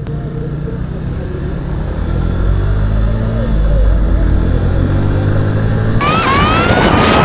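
Motorcycle engine pulling away from a stop, its pitch rising as it revs up. About six seconds in, loud wind noise on the microphone takes over at speed, with a rising whine over it.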